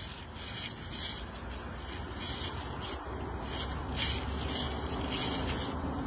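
Footsteps scuffing and crunching on fallen dry leaves, about two steps a second, over a low steady rumble.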